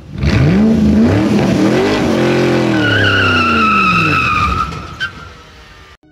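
Car sound effect: an engine revving up, then dropping in pitch as it passes by, with a tyre squeal from about three seconds in. It fades out and ends with a short click near the five-second mark.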